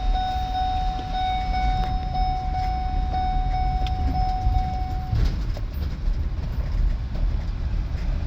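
Low, steady rumble of a vehicle on the move. Over it, a steady high tone pulses about twice a second and cuts off about five seconds in.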